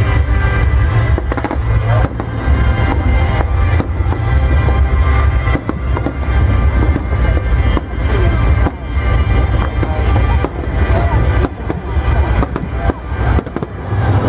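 Aerial fireworks bursting in rapid succession: deep booms overlapping with sharp cracks, with no break.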